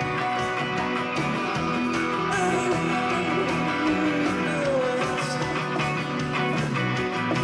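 Live rock band playing: strummed electric guitars with a man singing over them.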